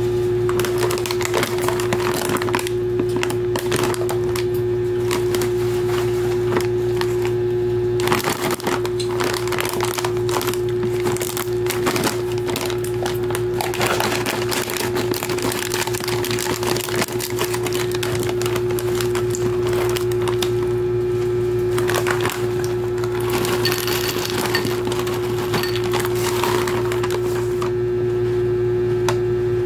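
Crinkly foil snack bag being handled and cut open with scissors, then crunchy puffed corn snack pieces tipped into a bowl, all over a steady hum.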